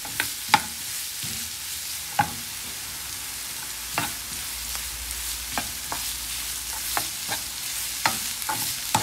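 Chopped onions sizzling in a granite-coated Tefal frying pan while a steel ladle stirs them, its edge scraping and knocking against the pan at irregular moments, roughly once a second.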